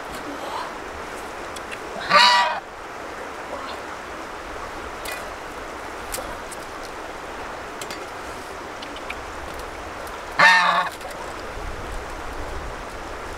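A white domestic goose, being handled, honks loudly twice, each a harsh call of about half a second, some eight seconds apart.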